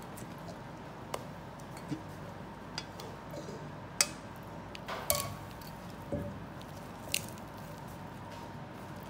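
Whipped cream being spooned into a stainless steel bowl and folded into a cream-cheese mixture with a spatula: soft squelches and scattered light clicks of the utensil against the metal bowl, the sharpest about four seconds in.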